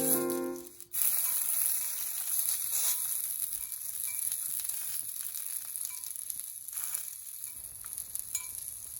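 Food frying with a steady high sizzle and a few faint pops. A tune fades out in the first second.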